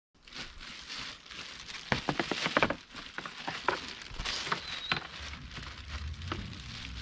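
Clear plastic wrapping crinkling and rustling as it is handled, with a run of sharper crackles about two to three seconds in.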